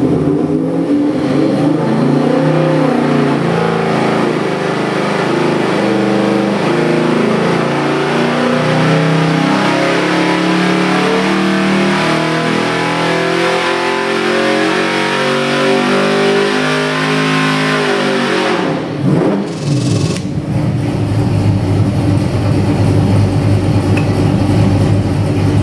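Ford 347 stroker small-block V8 running under load on an engine dyno, its pitch climbing steadily as the revs sweep up for about eighteen seconds. About nineteen seconds in, the throttle closes, the revs fall away quickly and the engine settles into a steady idle.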